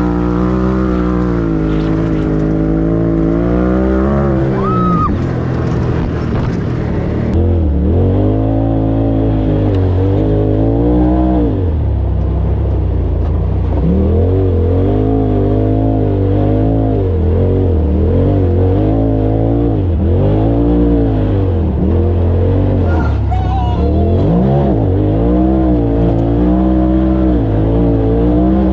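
Polaris RZR side-by-side engine running at trail speed, its pitch rising and falling again and again as the throttle is worked. The sound changes abruptly about seven seconds in.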